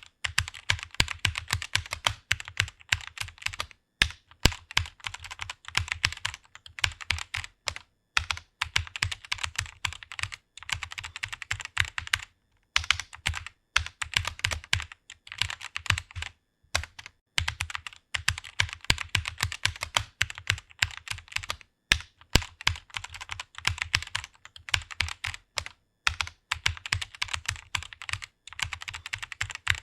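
Fast typing on a computer keyboard: rapid key clicks in runs, broken by short pauses every few seconds.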